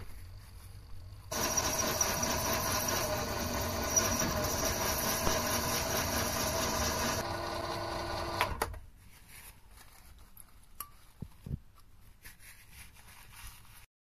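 Mini lathe turning a metal workpiece: a steady machine whine with a hiss of cutting that starts about a second in and stops about nine seconds in, leaving only faint ticks.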